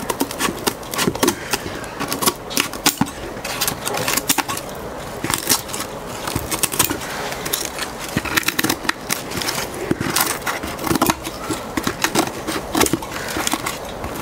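Scissors cutting through the stiff, dried layers of glued newspaper around the rim of a papier-mâché bin: a quick, irregular series of sharp snips with paper rustling.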